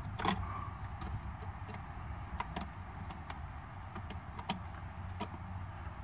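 Scattered small metallic clicks and ticks, roughly one a second, as a hose clamp on an intake tube is tightened with a small socket screwdriver, over a low steady hum.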